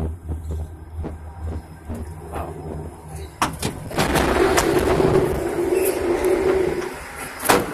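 Ropeway gondola cabin and station machinery: a couple of knocks about three and a half seconds in, then a steady mechanical rushing noise with a low hum for about three seconds, and a sharp clack near the end, typical of the cabin door shutting.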